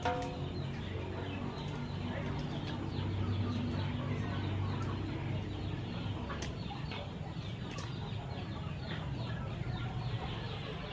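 Chickens clucking steadily, with a few sharp clicks about six and eight seconds in.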